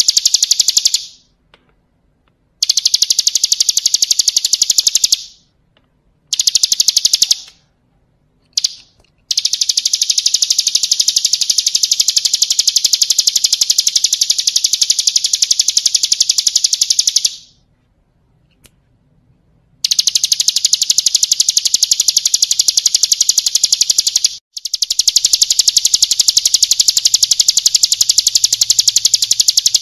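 Ciblek kristal (a prinia) singing a very fast, high-pitched trilled song in long unbroken bouts, with pauses of one to two seconds between them.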